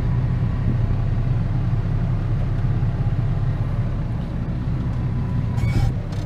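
Ford 7840 tractor engine running steadily while the tractor drives slowly, heard from inside the cab, with a few rattles near the end.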